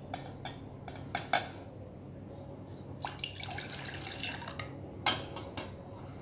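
Water poured from a drinking glass into a stainless steel pot over dry spices, splashing for about two seconds in the middle, with a few short clinks and knocks of glass and pot before and after.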